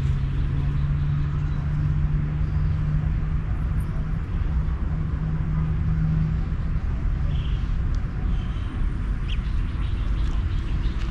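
Outdoor ambience: a steady low rumble with a vehicle engine hum that fades out after about six seconds, then a few short bird chirps.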